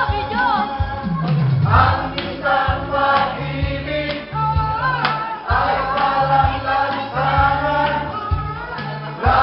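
Dance music with singing over a pulsing bass line, with a falling bass glide about a second in.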